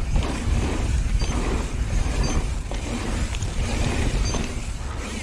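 Downhill mountain bike rolling fast down a dirt trail: a steady low rumble and hiss of knobby tires on hardpack and wind on the microphone, with scattered knocks and rattles from the bike over bumps.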